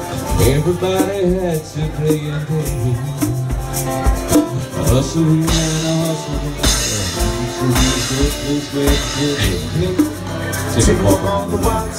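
Live band music: strummed guitar with hand percussion and a shaker, playing an instrumental stretch of a rock song.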